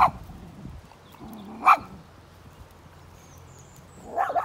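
Small dog barking three times, short barks spaced a couple of seconds apart, the middle one the loudest.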